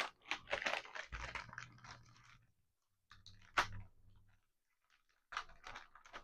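Plastic packet of soft plastic fishing baits being handled close to the microphone, crinkling and rustling in irregular bursts, with a sharp click about three and a half seconds in.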